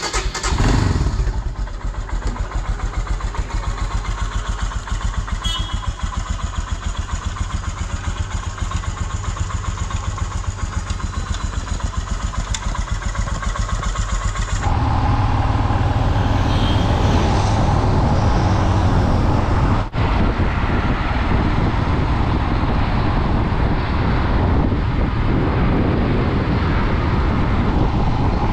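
Royal Enfield Himalayan's single-cylinder engine starting and then idling with an even, pulsing thump. After about fifteen seconds it gives way to the engine running louder and deeper as the motorcycle rides along.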